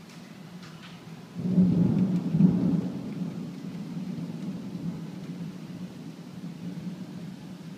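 Thunder: a sudden low crack about a second and a half in, then a rolling rumble that slowly dies away, heard through rain-streaked window glass.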